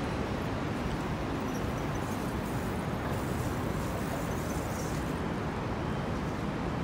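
Steady low rumble of city traffic and street ambience, with no distinct sound standing out.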